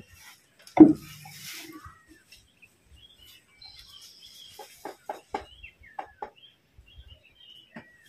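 Quiet background of birds chirping, with a run of short clucking calls from chickens about halfway through. One sharp knock comes about a second in.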